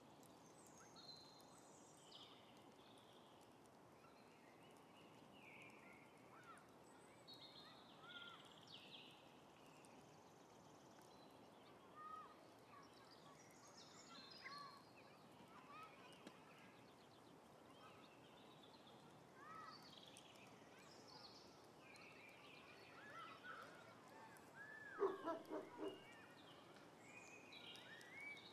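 Faint birdsong ambience: scattered short chirps and warbles from several birds over a soft steady hiss. Near the end, a short run of about four louder, lower calls.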